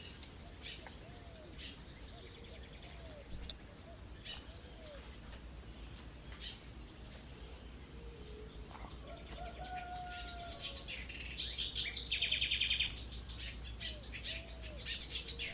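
Tropical forest ambience: a steady high-pitched insect drone with birds calling. Short low calls recur every second or so, and from about nine seconds in a louder run of fast, rapidly repeated high chirps joins them.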